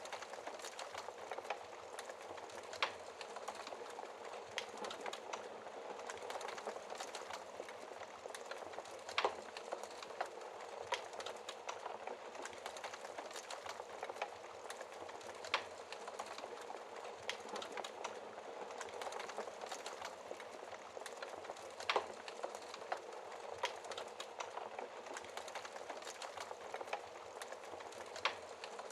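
Wood fire burning in a fireplace: steady crackling made of many small snaps, with a louder pop every six seconds or so.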